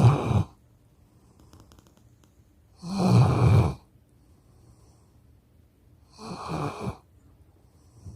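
A sleeping dog snoring loudly in a slow, even rhythm: the end of one snore at the start, then two more snores about three seconds apart, each lasting about a second.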